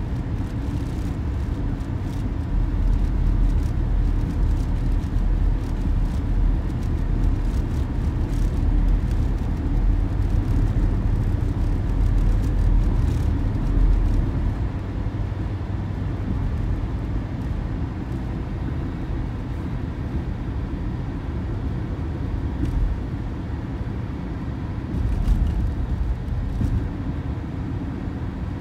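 Car driving through a road tunnel, heard from inside the cabin: a steady low rumble of tyres and engine, louder in the first half.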